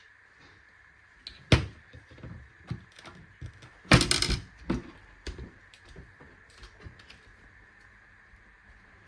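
Clicks, taps and a rattling clatter of an M-LOK grip being handled and fitted to an airsoft rifle's handguard. There is a sharp click about a second and a half in, a louder clatter about four seconds in, then lighter taps.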